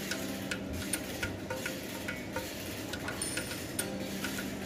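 Manual lever block (lever chain hoist) being ratcheted, its pawl giving sharp metallic clicks two or three times a second at a slightly uneven pace, over a steady low hum.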